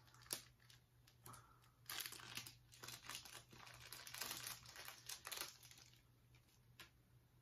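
Small clear plastic bag crinkling in the fingers as it is worked open to take out a badge: a faint run of crackles from about two seconds in to five and a half, with a sharp click near the start and a last tick near the end.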